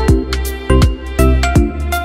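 Background music with a steady beat: a deep kick drum about twice a second under sustained bass and plucked notes.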